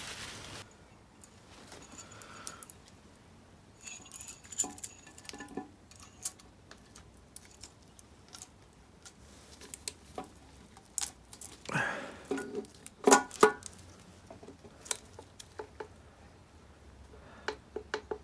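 Metal clinks, scrapes and knocks as a Quaife ATB limited-slip differential, with its crown wheel and bearings, is worked into place in an MGB rear axle casing. The handling comes in irregular bursts, with two sharp knocks standing out about two-thirds of the way through.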